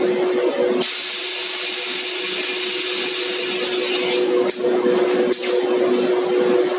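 Steady hum of EPS foam production machinery, holding two tones. About a second in, a loud hiss of escaping air or steam starts and lasts about three seconds. A few sharp clicks follow.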